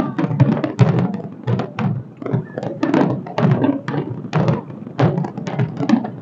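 Fireworks bursting overhead in a rapid, irregular series of bangs and booms, several a second.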